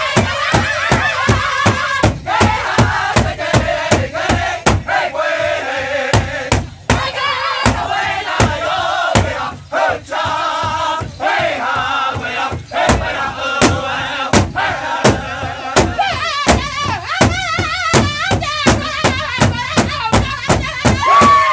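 Powwow drum group singing in high, wavering voices while striking a large shared hide drum in unison, a steady beat of about three strikes a second.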